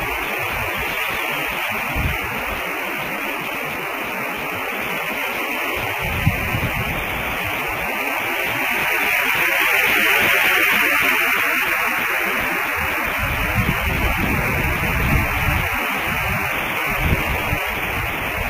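Steady hiss from a nest-camera microphone, with wind rumbling on the microphone in a few stretches.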